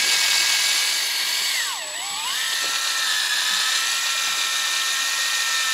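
Electric fishing reel's motor whining steadily as it winds in line. About two seconds in, the pitch dips sharply for about half a second and comes back up, then holds a little lower.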